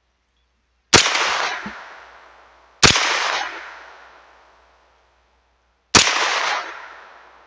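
Three shots from a Bear Creek Arsenal BC9 Bufferless 9mm carbine: about a second in, near three seconds and near six seconds. Each shot is followed by a long echo that fades out.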